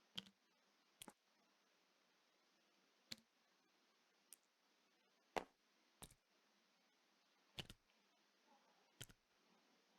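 Faint, sparse clicks of game pieces being handled and set down, about eight at irregular spacing, over near silence.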